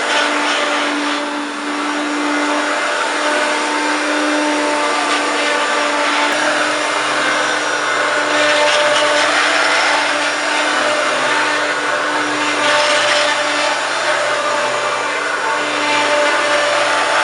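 1993 Hoover Turbopower 1 U2798 upright vacuum cleaner running steadily with a constant motor hum, the rushing noise swelling and easing every few seconds. The motor sounds very worn out.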